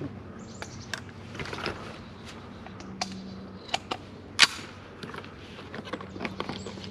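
Shotgun being handled and loaded: scattered sharp clicks and clacks of shells and the action, the sharpest one about four and a half seconds in.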